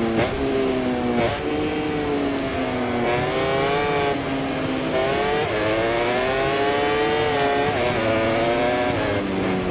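MotoGP racing motorcycle's four-cylinder engine heard from onboard: the revs fall and jump through several quick gear changes, then climb steadily for a couple of seconds from about halfway as the bike accelerates, before dropping again near the end.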